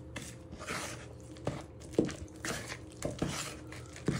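Wooden spoon stirring cake batter of creamed margarine, sugar, flour and egg in a plastic mixing bowl, knocking lightly against the bowl's side roughly every half second, with soft scraping between.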